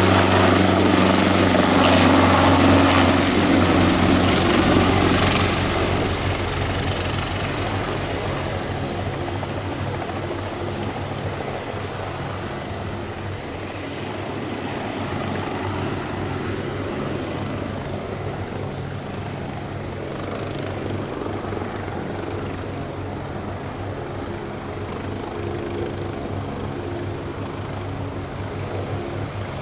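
Turbine helicopter running, its rotor beating low with a high turbine whine; the sound is loudest for the first five seconds or so, then falls off and carries on steadily at a lower level.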